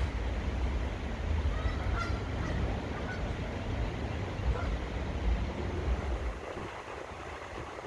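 A few short bird calls, clustered around two seconds in and scattered after, over a steady low wind rumble on the microphone.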